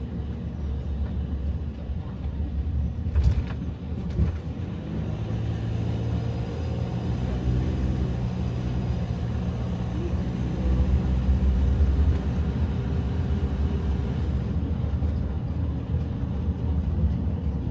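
Motor vehicle running with a steady low rumble, and a single knock about three seconds in.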